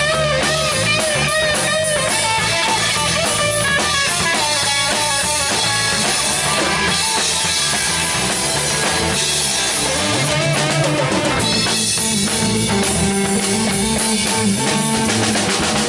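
Live rock band playing an instrumental passage: electric guitar and electric bass over a drum kit, steady and loud.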